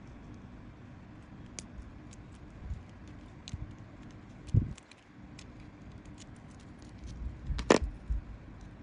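Small metal clicks and taps as steel pliers work the wire loop, beads and metal blade of a homemade spinner lure. A dull knock comes about halfway, and the loudest, sharpest click comes near the end amid a few handling bumps.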